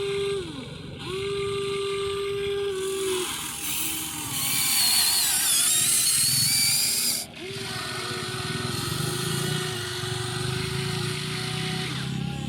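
Small electric motors of radio-controlled construction toys whining in several runs, each rising in pitch as it starts and falling as it stops. About four and a half seconds in comes a louder, harsher buzz that cuts off sharply about seven seconds in.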